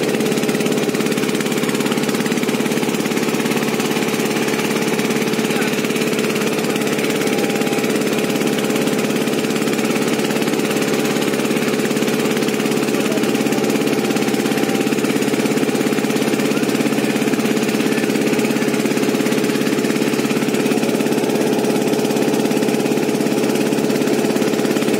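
A boat's inboard engine running steadily under way, a constant hum with a knocking throb, over the hiss of the wash churning along the hull.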